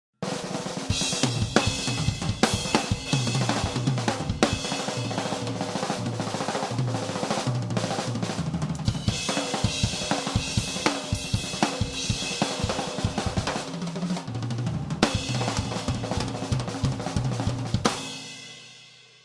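Drum kit solo played fast and busy: snare, bass drum, toms, hi-hat and cymbals in dense strokes with frequent accents. It stops sharply about eighteen seconds in, leaving the kit ringing out as it fades.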